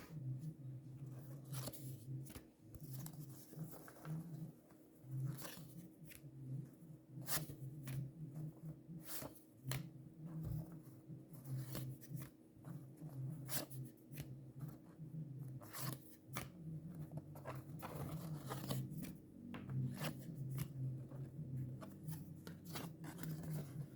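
Paper baseball cards being handled and flipped through, with irregular sharp card clicks and brief rustles over a steady low electrical hum.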